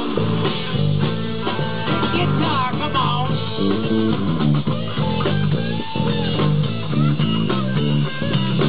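Live rock band playing: a custom purpleheart-bodied DP bass guitar carrying a moving bass line under a drum kit, with an electric guitar playing lead lines with bent notes.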